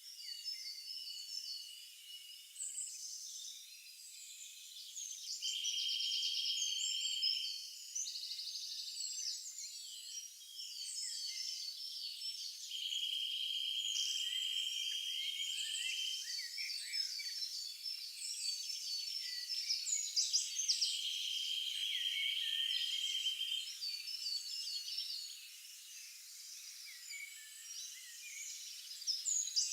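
Forest wildlife chorus: many birds chirping and repeating short phrases, with three bursts of rapid pulsed trilling that last a few seconds each.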